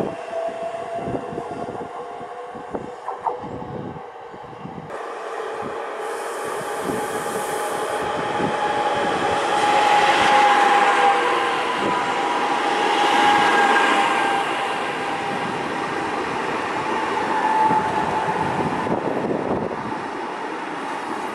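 Electric passenger train pulling alongside a station platform. A few sharp clicks at first, then a swelling rush of wheels on rails with steady whining tones, loudest as the carriages slide close past.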